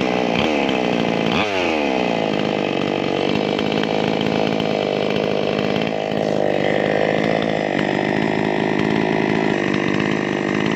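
Chainsaw's two-stroke engine running after a clutch fitting, revving up about one and a half seconds in and then running steadily.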